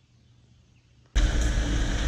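Near silence, then about a second in a Cat 304 mini excavator's diesel engine and hydraulics cut in abruptly, running loud and steady with a constant hum.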